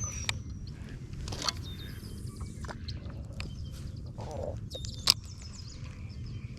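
Birds chirping over a steady low background noise. A few sharp clicks break in, the loudest about five seconds in.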